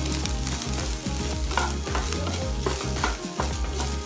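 Wooden spatula stirring and scraping boiled rice around a nonstick frying pan in repeated strokes, with ghee sizzling faintly under the rice.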